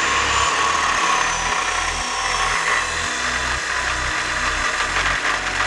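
Angle grinder with a cutting disc running under load against steel on a truck axle, a steady grinding hiss.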